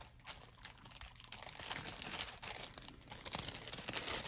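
Crinkling of a small plastic baggie as hands rummage through it, irregular crackles, a little louder near the end.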